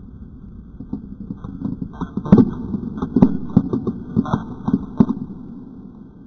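A quick, irregular run of hard clicks and knocks for about four seconds, loudest about two seconds in, then tailing off.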